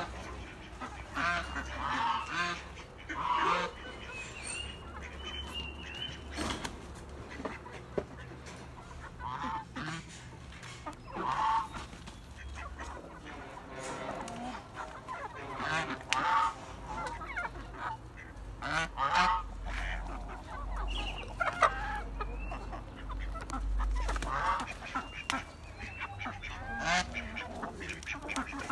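Domestic geese honking again and again, short separate calls every second or two, amid a flock of chickens.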